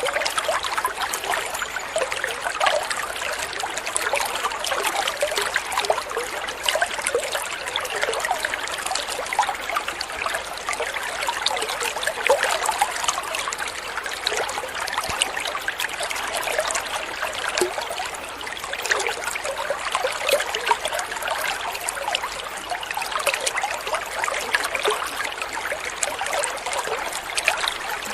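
Water trickling and gurgling steadily, a continuous patter of small splashes with no pauses.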